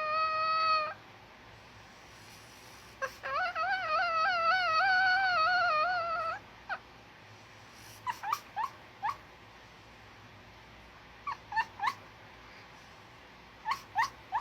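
Sleeping pug puppy making high, whistling whimper-like sounds: a held tone that stops about a second in, a longer wavering one from about three to six seconds in, then short squeaks in small groups. The uploader takes them for snoring caused by a slight breathing issue.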